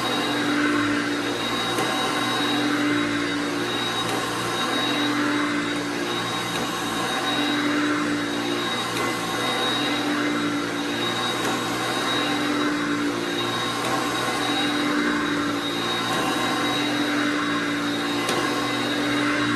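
Early-1980s Hoover Concept One vacuum cleaner running steadily, with a high whine throughout and a lower hum that swells and fades every two seconds or so.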